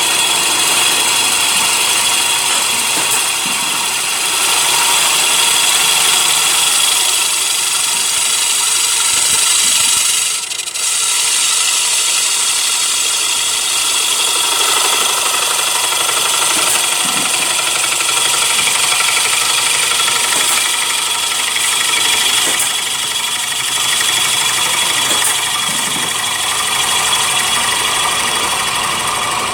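CNC wood lathe running steadily while turning a wooden plate, a continuous machine noise with a high whine and a brief dip about ten seconds in.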